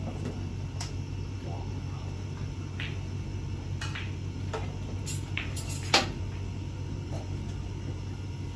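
Snooker cue and balls clicking: a few light clicks, then one sharp, loud ball click about six seconds in, over a steady low hum.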